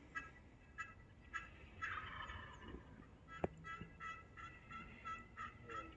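Wild turkeys calling faintly from a distance: a gobble about two seconds in, amid a run of short, repeated yelps.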